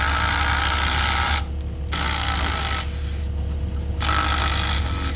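Handheld cordless power driver running in short bursts, about three of them with brief pauses, as a wooden drag plate is fastened on in a trench. A steady low machine hum sits underneath.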